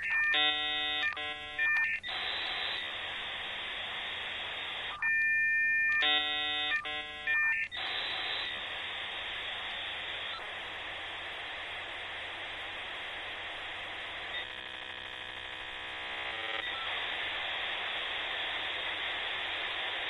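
Dial-up modem handshake over a phone line. Short bursts of several tones at once alternate with hiss and a single steady tone. A long hissing rush of data follows, with a couple of seconds of many steady tones sounding together partway through, as the two modems negotiate the connection.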